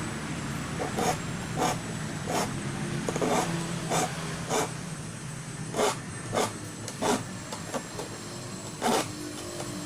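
Hand file rasping across the teeth of a hand saw being sharpened, in short strokes about every two-thirds of a second, with a longer pause near the end.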